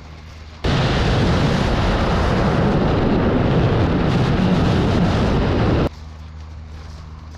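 Loud freefall wind rushing over a skydiver's camera microphone at terminal velocity, cutting in abruptly about a second in and cutting off just as abruptly near the end, with a quieter outdoor background and a faint low hum on either side.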